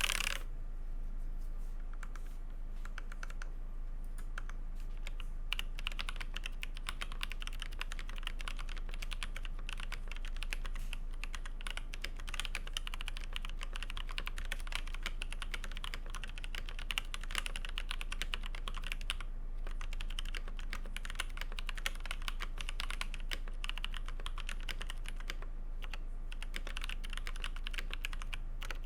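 Mechanical keyboard with Kailh Polia tactile switches, lubed with Krytox 205 g0, in an aluminium plate under GMK keycaps, typed on continuously at a steady pace, with short pauses about two-thirds of the way through.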